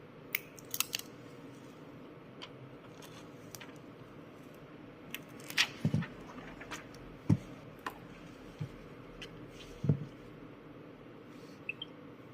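Irregular small clicks and taps of tools and Vivo V17 smartphone parts being handled and fitted, with a few louder short knocks about six, seven and ten seconds in.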